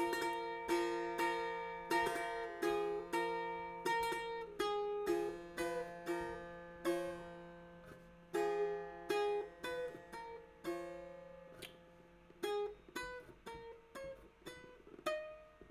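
Setar played solo: a melodic run of plucked notes, each struck sharply and ringing away, with a steady low drone under the first half. After about eleven seconds the notes grow softer and sparser.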